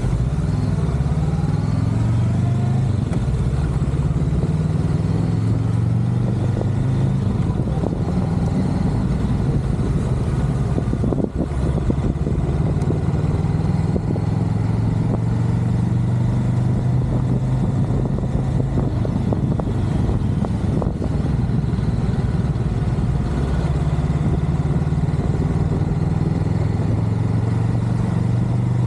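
Motorcycle engine running while the bike is ridden through town, its low note rising and dropping as the rider opens and closes the throttle, over steady road and wind noise.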